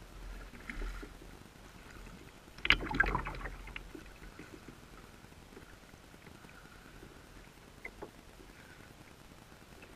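Moving water heard through a submerged GoPro's waterproof housing: muffled and low throughout, with a dense burst of clicks and bubbling about three seconds in and a single click near eight seconds.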